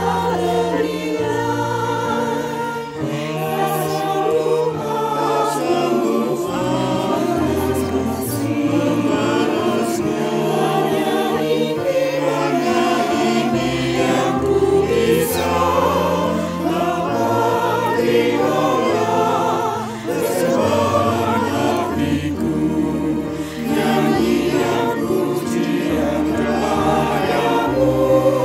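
A church choir of older singers singing a hymn in harmony, mixed over instrumental accompaniment with long held bass notes.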